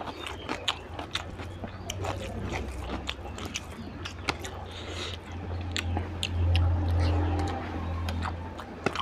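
Close-miked wet chewing and lip smacking, with squelching as curry-soaked rice is mixed and scooped by hand. A low rumble swells over the second half.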